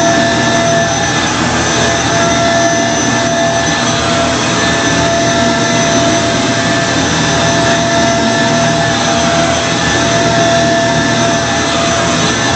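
2006 Kenmore Progressive Intelliclean vacuum cleaner running steadily while vacuuming, a loud motor rush with a constant whine on top.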